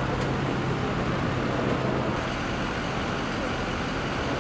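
Steady engine and machinery hum of an idling vehicle, with a low hum that drops out about two seconds in.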